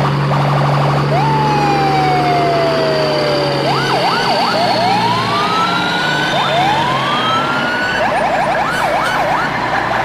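Electronic siren sounds. A slow falling wail comes first, then fast warbling sweeps and long rising whoops, over a low steady hum that stops about four seconds in.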